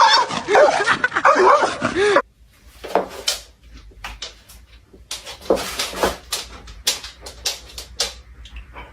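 Loud wavering voice-like cries cut off suddenly about two seconds in. Then a dog gives a string of short, sharp yips and whimpers.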